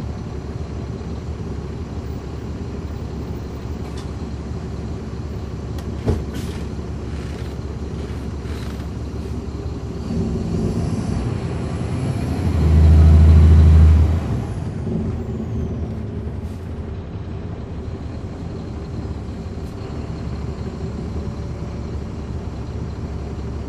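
Caterpillar C13 ACERT diesel engine of a transit bus running, heard from inside the bus, with a ZF automatic transmission. Midway the engine swells into a loud low drone for about a second and a half, then settles back. There is a single sharp click about six seconds in.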